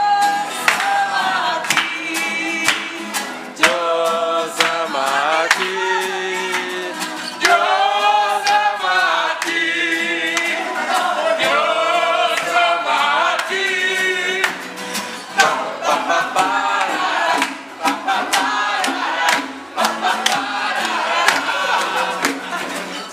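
A group of young people singing together to strummed acoustic guitars.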